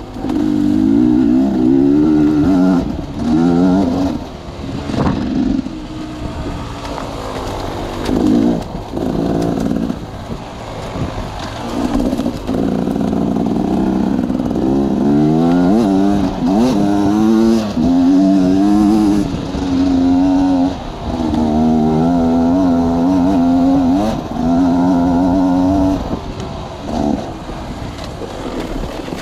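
Engine-driven sawmill machinery running, the engine's pitch repeatedly dipping and climbing again, with several short drops in level.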